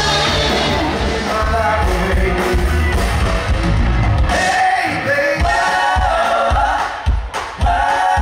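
Music with a singing voice; a steady drum beat comes in about five seconds in, at about three beats a second.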